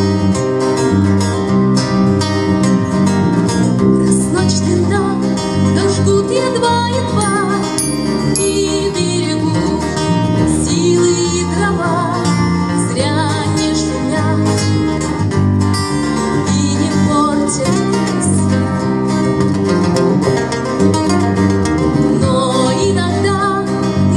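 Instrumental passage of a rock song: the band plays with a guitar carrying the melody over bass and drums.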